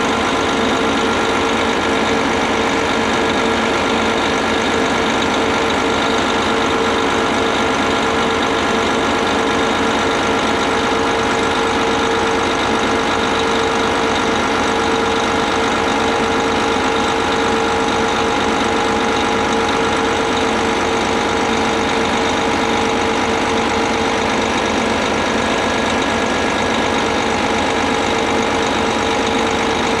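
Putzmeister 58-metre concrete boom pump truck's diesel engine running steadily, with a constant hum over it, while the hydraulics slowly lower a boom section back into line.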